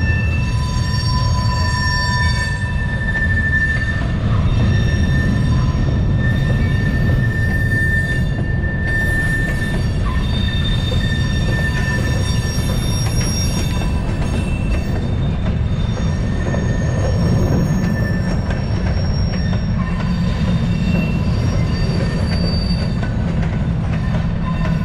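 Freight train of covered hopper cars rolling past at close range: a steady low rumble of steel wheels on rail, with thin high-pitched wheel squeals that come and go every few seconds.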